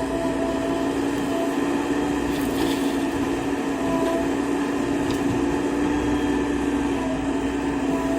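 JCB backhoe loader's diesel engine running steadily at a constant pitch, with a few faint short higher-pitched whines coming and going over it.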